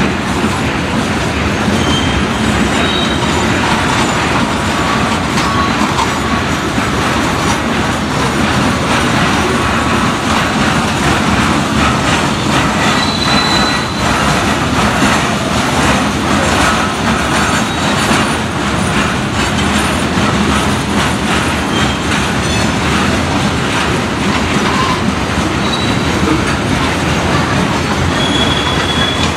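Freight train's open hopper cars rolling past: a steady loud rumble of steel wheels on rail, with clickety-clack over the joints and short high wheel squeals now and then.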